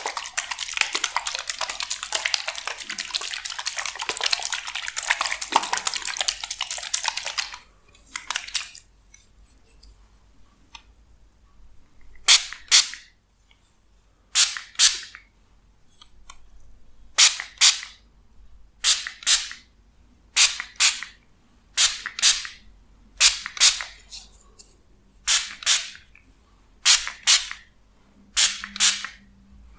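Crackling, wet handling of a clear plastic bottle of liquid for the first several seconds. Then, from about twelve seconds in, a plastic fine-mist spray bottle is pumped about ten times, roughly once every second and a half, each pump a quick double hiss of spray.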